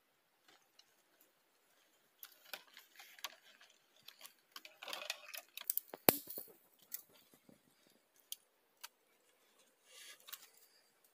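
Plastic bags crinkling and rustling as they are handled at a tree branch, with scattered sharp clicks, the sharpest about six seconds in, and a short burst of rustling near the end.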